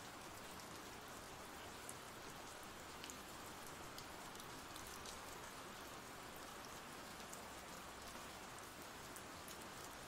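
Faint ambient rain sound effect: a steady hiss of rain with scattered small drop ticks.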